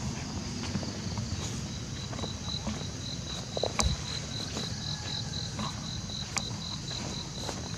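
An insect calling with a high, pulsed chirp of about four pulses a second, starting about two seconds in, over a low rumble of handheld walking with a few clicks and a thump about four seconds in.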